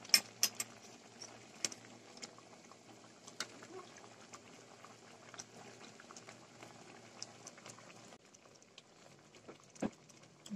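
Catfish in coconut milk simmering in a stainless steel pot: a low bubbling hiss with scattered small pops. A metal spoon stirring along the bottom of the pot gives a few clinks just after the start, and there is a sharper knock near the end.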